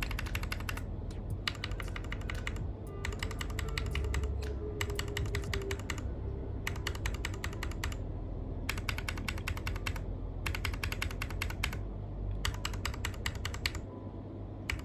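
Gateron Milky Black keyboard switches with keycaps on a TM680 keyboard kit, pressed rapidly in bursts of clicking about a second long with short pauses between, a freshly lubed switch tested against an unlubed one. The lubed switch sounds tidier and a little slower; the unlubed one is a bit scratchy.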